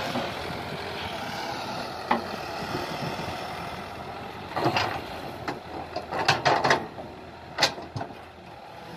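Kobelco SK120 hydraulic excavator running steadily as it digs in soft mud, with a run of sharp clanks and knocks from about halfway through.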